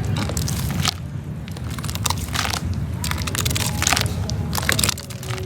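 Soft, slightly damp reused cement crumbling and being crushed, in a run of irregular crunches of varying strength, over a steady low hum.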